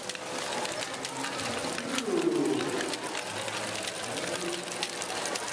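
LEGO Great Ball Contraption modules running: small plastic balls clattering down ramps and through Technic mechanisms, with constant quick clicking and rattling. A brief vocal sound rises and falls about two seconds in.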